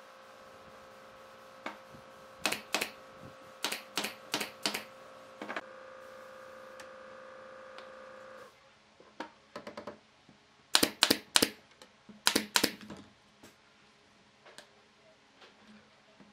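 Pneumatic nail gun firing into a wooden chair frame: sharp clacks in quick runs of a few shots, the loudest run a little past the middle. A steady hum under the first half stops abruptly about halfway through.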